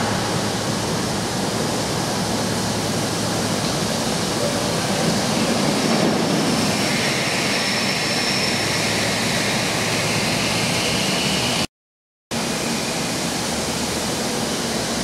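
Steady hiss of steam escaping from the standing LMS Royal Scot class 4-6-0 locomotive 46115 Scots Guardsman, with a brief cut-out of all sound near the end.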